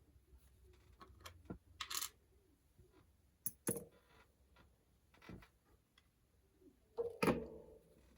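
Small metal clicks and scrapes of circlip pliers working a retaining circlip off the back of a lock cylinder, with a louder knock about seven seconds in.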